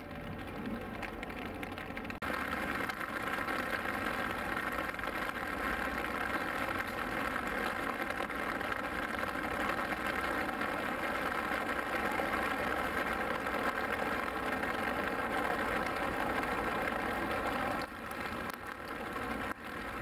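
A steady mechanical drone, like an engine idling, that sets in about two seconds in and cuts off suddenly near the end.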